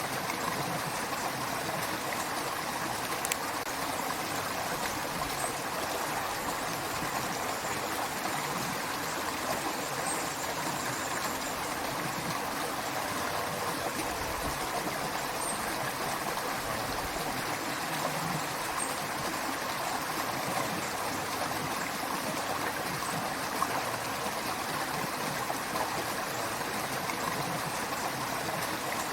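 A running creek: a steady, unbroken rush of flowing water.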